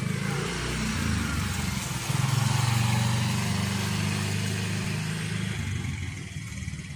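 Motorcycle engine passing by, getting louder with a rise in pitch about two seconds in, then fading away over the last couple of seconds.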